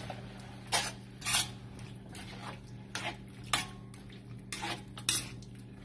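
Spatula scraping and knocking against a wok as vegetables are stirred through a thin sauce, in irregular strokes about once or twice a second.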